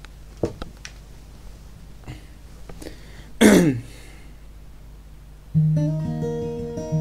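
Acoustic guitar fingerpicking that begins about two-thirds of the way in, with ringing notes. Before it there are a few faint clicks and taps, and midway a short loud noise that falls in pitch.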